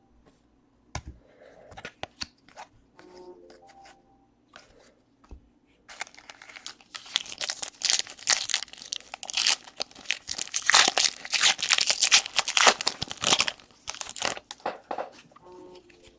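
Foil wrapper of a baseball card pack torn open and crinkled: a few scattered clicks, then a loud run of tearing and crackling from about six seconds in that dies down near the end.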